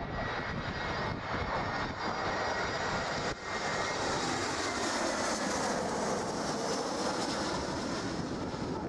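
Twin-engine jet airliner on final approach passing low and close, its engines running with a steady whine. The sound breaks off briefly about a third of the way in, then builds again and drops in pitch as the aircraft goes by.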